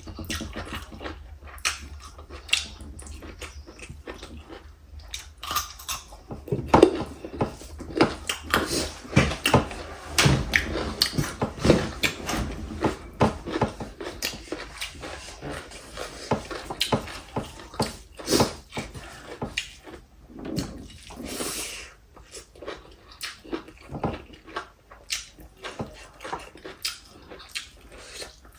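Close-up eating sounds: chewing, lip smacks and slurping of soup, with many irregular short clicks, busiest in the middle stretch.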